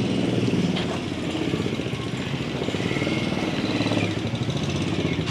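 A motor vehicle's engine running close by, steady and loud with a fast even pulsing.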